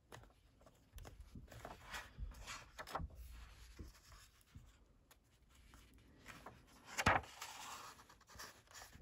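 Paper pages of an old printed manual being handled and turned by hand: soft rustling and brushing of paper, with the loudest swish of a page about seven seconds in.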